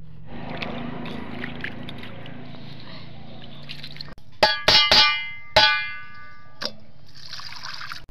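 Steel kitchen utensils clanging together about halfway through: five sharp, ringing strikes in quick succession. Near the end comes a short splash of water poured from a steel tumbler onto a stone grinding slab.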